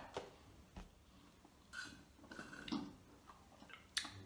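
Quiet mouth and handling sounds at a table, with a sharp tap about four seconds in as a glass jar is set down.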